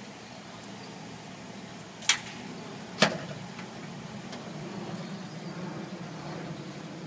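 Two sharp knocks about a second apart, the second louder and briefly ringing, as a person climbs onto the seat of a Nordco 6008 hi-lift truck, over a steady low hum.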